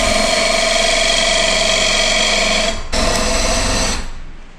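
Cordless drill running at speed, spinning a length of wood through a homemade steel dowel plate to shave it into a round dowel. It stops briefly just before three seconds in, runs again for about a second, then stops near the end.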